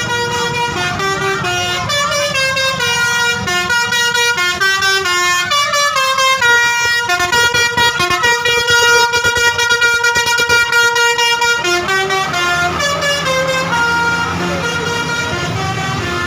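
Indonesian bus 'telolet' musical air horns playing a tune: loud multi-note horn blasts stepping from pitch to pitch, with a fast run of short rapid notes in the middle, over a low rumble.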